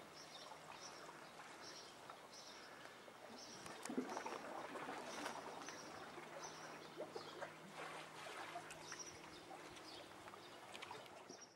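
Faint outdoor ambience: a soft wash of water under a short, high-pitched chirp that repeats about once or twice a second, with a few faint clicks.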